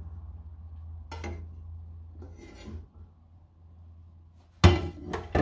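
Metal cookware being scraped and handled as the last pieces of cooked pasta are cleared from a pot into a mesh strainer: faint scraping and rubbing, then a loud metal clank near the end and another knock just after. A low steady hum runs underneath.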